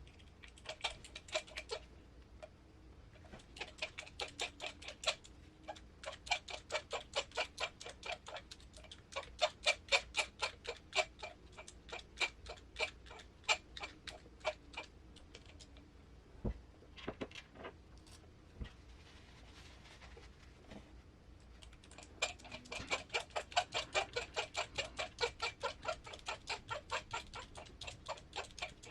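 Rapid, light, regular clicking in runs of several seconds, about four clicks a second, with short pauses between runs, as small hard parts are worked by hand.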